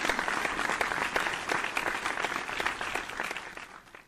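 Applause: many hands clapping together, fading out near the end.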